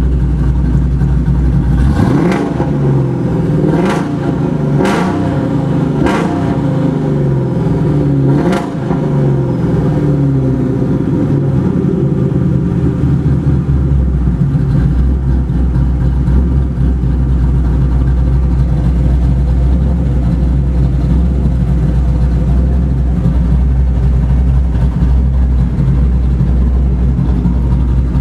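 Modified 1999 Ford Mustang GT 4.6-litre V8, with long-tube headers and an SLP cat-back exhaust, idling and then blipped through several quick revs. Five sharp cracks come during the revving. It settles back to a steady idle about halfway through.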